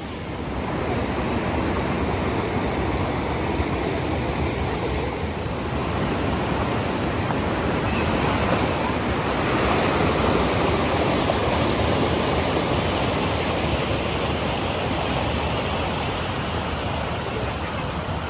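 Waterfall rushing: a steady, dense roar of falling water that swells a little about a second in.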